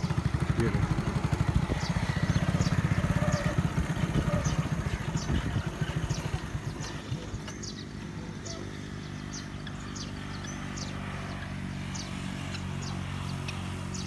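An engine running, loud with a fast low pulsing for the first half, then fading about halfway to a quieter, steady low hum. Short high chirps repeat over it.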